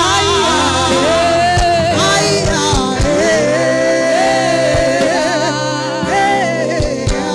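Gospel worship music: a voice sings long, wavering held notes over a sustained instrumental backing, with a few sharp percussive hits.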